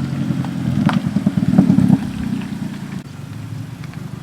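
Car engine running close by, louder and pulsing for about the first two seconds, then settling to a steadier, quieter run.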